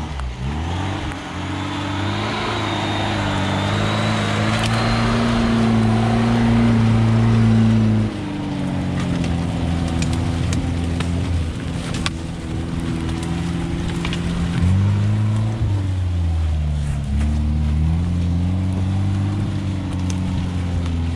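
Lada Niva 4x4's four-cylinder engine pulling under load. Its revs climb for several seconds, drop suddenly about eight seconds in, then rise and fall with the throttle, with a few sharp clicks here and there.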